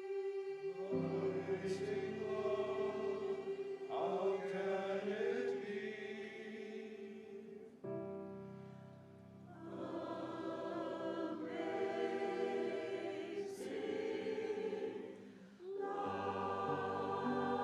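Choral music: voices hold sustained chords that change every few seconds, with a brief quieter dip about halfway through.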